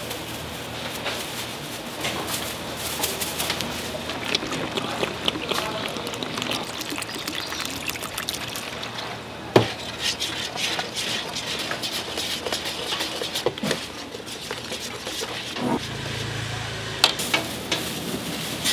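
Frying batter being mixed in a stainless steel bowl: water going onto flour and seasoning powder and being stirred, with the utensil scraping and clinking against the bowl, and one sharp clink about halfway through.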